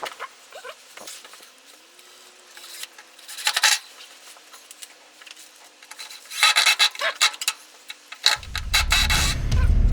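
Short bursts of scraping and rubbing as wooden and iron shelf parts are handled and fitted together. A loud, low, steady rumble comes in near the end.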